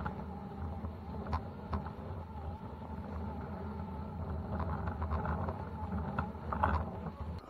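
RC truck's electric drivetrain running steadily while towing a loaded trailer over snow, heard from on board the trailer: a continuous low rumble with a faint steady whine, and sharp clicks and rattles from the trailer and its load, a cluster of them near the end.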